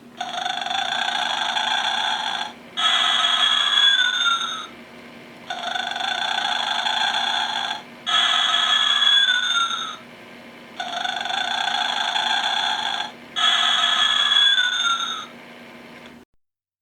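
Gemmy animated Easter bunny decoration playing its recorded snore, three cycles in all. Each cycle is a noisy in-breath followed by a louder out-breath that ends in a falling tone, with short pauses between, over a faint steady hum.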